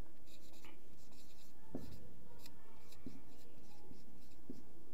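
Marker pen scratching and squeaking on a whiteboard in short, irregular strokes as a line of text is written.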